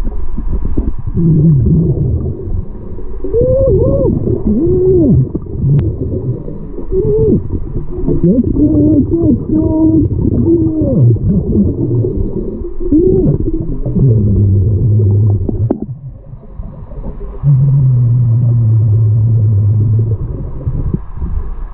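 Underwater recording of a hookah diver breathing through a regulator: bubbling rumble with wavering low tones, short hisses now and then, and a steady low hum twice in the second half.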